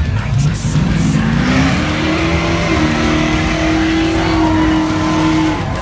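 Classic car's engine revving up over about two seconds, then held at a steady high pitch for about three seconds before dropping off suddenly near the end.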